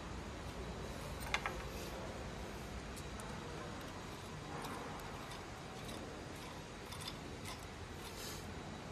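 Small clicks and snaps of hands handling plastic pneumatic tubing and fittings inside a mask-making machine, the sharpest pair about one and a half seconds in and a few fainter ones later, over a steady low hum.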